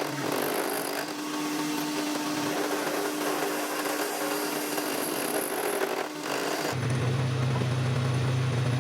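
A power tool running steadily with a constant whine over a rough hiss. About two-thirds through it gives way abruptly to a different, deeper steady hum.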